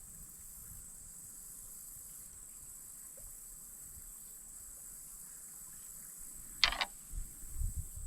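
Insects buzzing steadily at a high pitch, with a sharp click about two-thirds of the way in followed by a few low knocks.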